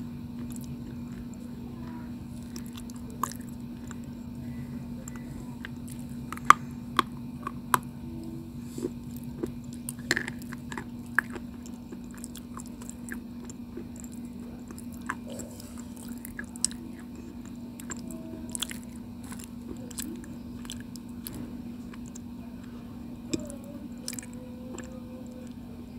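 Close-miked chewing of a white, chalky mouthful, with scattered sharp crunches and clicks. The crunches bunch together about six to eleven seconds in. A steady low hum runs underneath.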